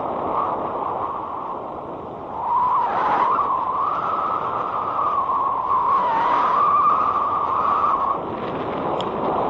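Wind and road noise on a helmet-mounted camera while riding an electric scooter. A wavering whine joins about two and a half seconds in and stops after about eight seconds.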